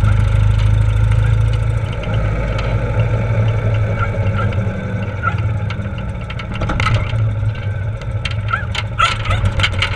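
Ural Gobi sidecar motorcycle's flat-twin engine running steadily under way. The level sags slightly about six seconds in, then picks up again, with a scatter of brief clicks in the last few seconds.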